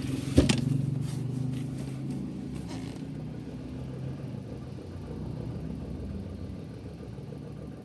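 Suzuki Every DA17V minivan's engine idling steadily at low idle, with one sharp knock about half a second in as the seat over the engine is set back down. At this idle speed a faint rattle persists, which the owner suspects is a worn drive-belt tensioner bearing.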